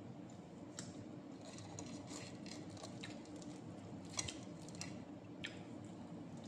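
Fingers tearing and picking apart smoked fish on a plate, with scattered small clicks and crackles, the sharpest about four seconds in, and some chewing, over a faint steady hum.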